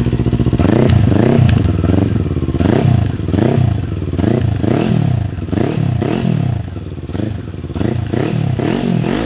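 Kawasaki Ninja 400 parallel-twin engine breathing through a newly fitted Akrapovic slip-on exhaust, idling and then revved in quick throttle blips, about two a second, each rising and falling. The exhaust is loud and aggressive.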